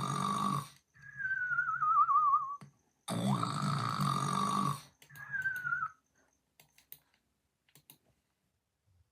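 Snoring in two cycles: a loud, buzzy snore, then a high whistle that slides down in pitch, the second cycle shorter. A few faint clicks follow.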